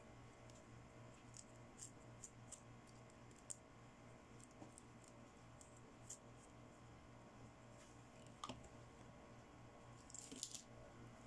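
Faint, scattered light clicks and ticks of small plastic toy accessories being handled and unpacked, over a low steady hum. There is a slightly sharper click about three quarters of the way through and a short flurry of clicks near the end.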